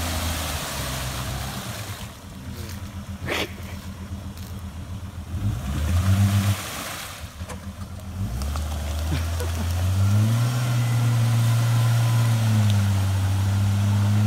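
Jeep Grand Cherokee ZJ engine pulling through deep mud. It runs low for the first few seconds, revs briefly about six seconds in, then holds higher revs from about eight seconds on as the tyres churn through the muddy water.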